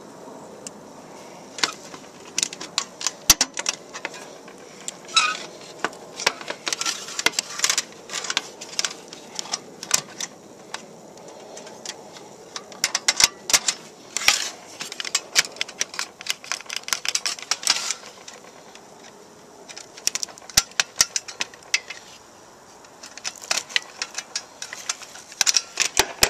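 Metal parts of a homemade wood stove clinking and clattering as they are handled and taken apart: irregular clusters of light clicks and taps, with a couple of short lulls.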